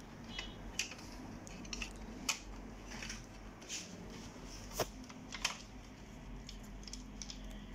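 Hard plastic parts of an Epson DS-1630 scanner's document feeder clicking and knocking as the feed-roller assembly is worked free by hand: a dozen or so short, irregular clicks, the sharpest a little under five seconds in.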